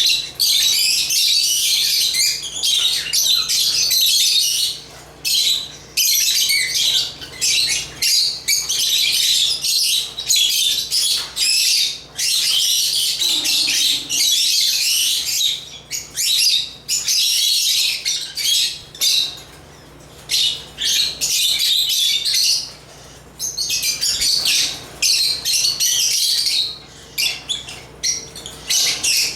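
Lovebirds (Agapornis) chirping in rapid, high-pitched, overlapping bouts, with short lulls every few seconds.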